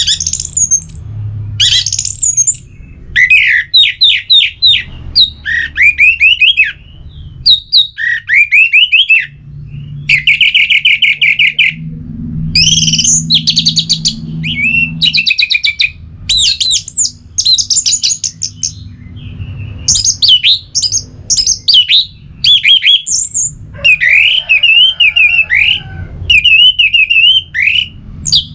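Orange-headed thrush singing: a varied run of loud phrases of fast repeated notes, trills and sweeping whistles, each a second or two long with short pauses between, over a faint low hum.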